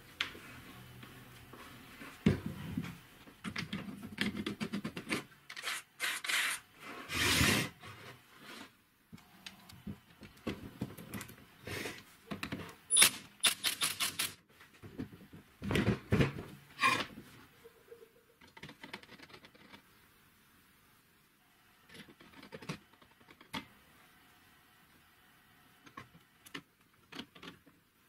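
Metal parts of a homemade angle-grinder router base being handled and fitted together: irregular clinks, knocks and scrapes, busiest in the first half, then sparse quieter clicks.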